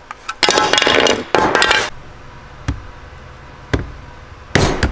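Workshop handling and tool noises on a bench while the blaster is assembled: two rattling, scraping bursts, then two separate sharp knocks, and a short clatter near the end.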